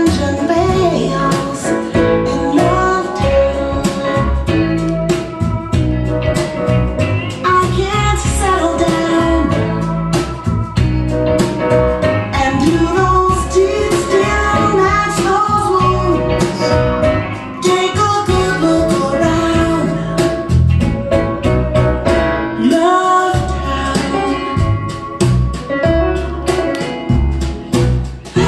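Music: a song with a singing voice over instrumental accompaniment and a steady beat.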